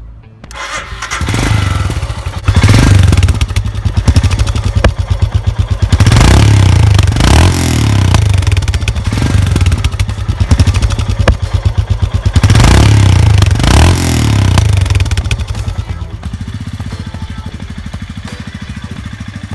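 Royal Enfield Himalayan's 411 cc single-cylinder engine running through its stock exhaust, revved up several times and dropping back to a lower, steady idle near the end.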